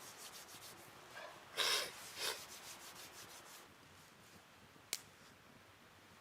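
A quick series of rubbing, brushing strokes, two of them louder about a second and a half in, then a single sharp click near the end.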